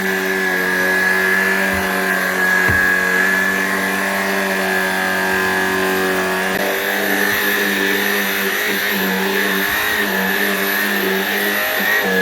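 Shark Rocket PowerFins cordless stick vacuum running steadily on carpet: a constant motor hum with a high whine above it. The pitch wavers slightly in the second half.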